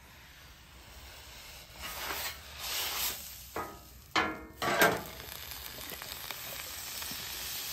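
A paper towel pushed with a metal scraper scrubs across a hot steel flat-top griddle, with a few short, louder scrapes about four to five seconds in. Then water squirted from a squeeze bottle sizzles and hisses into steam on the hot plate, the hiss growing steadily.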